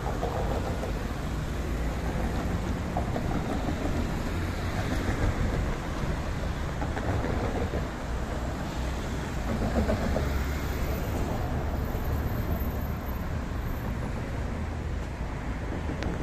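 Running noise of a moving tram heard from inside: a steady low rumble.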